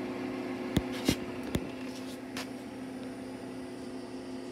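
Craftsman 110-volt wire-feed welder humming at idle, a steady electrical hum from its transformer and cooling fan. Three sharp clicks come close together about a second in.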